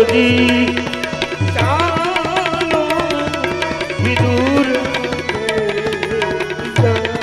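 Live Gujarati devotional bhajan accompaniment: tabla playing a steady rhythm under low drum strokes, with a wavering sung melodic line rising in twice between the beats.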